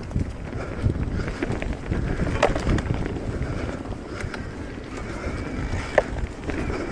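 Mountain bike riding down a dirt trail: wind buffeting the microphone over a steady tyre rumble, with scattered rattles from the bike and two sharper knocks, about two and a half and six seconds in.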